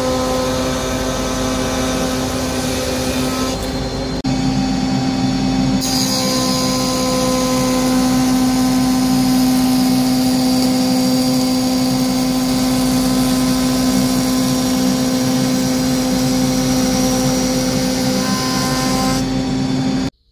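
Charnwood PT10S planer thicknesser with a spiral cutter block, driven by a 2200 W induction motor, running: a loud steady hum with a high hiss that drops away for about two seconds near the start and then returns. It cuts off suddenly near the end.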